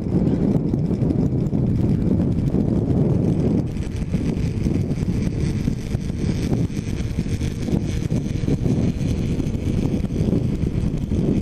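Heavy wind buffeting on a helmet-mounted camera's microphone while riding a motorcycle at road speed: a steady, loud, low rumble that drowns out the engine.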